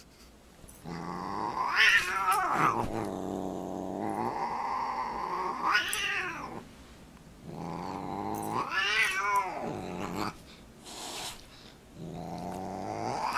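Siamese cat yowling and growling in several long, drawn-out calls that rise and fall in pitch: the threat call of an angry cat squaring up to a dog.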